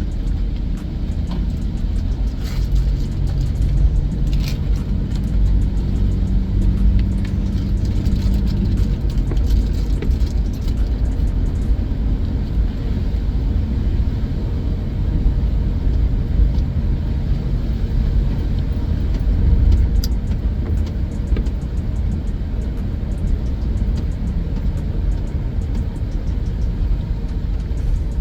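Steady road and engine rumble from inside a moving car's cabin, with music playing faintly.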